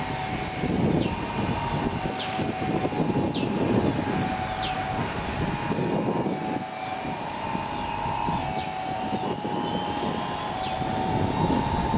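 Airliner engines running during a take-off: a steady noisy rumble with a faint whine in it. Short high chirps repeat about once a second over it.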